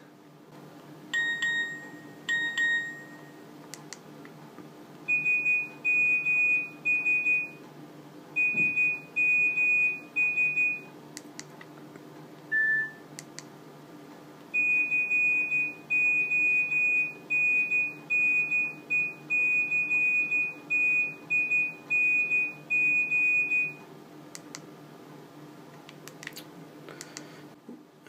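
Nokia 2310 mobile phone's speaker playing its built-in message alert tones as each is previewed in the menu. First comes a pair of short tones, then two groups of three high beeps, a single short lower beep, and then a long run of repeated high beeps lasting about nine seconds. Faint key clicks sound between the tones.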